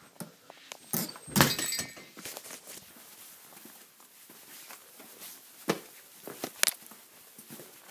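Handling noise from an iPad being carried and set up: a run of knocks and thuds, the loudest a clattering thud about a second and a half in, with two more sharp knocks near the end.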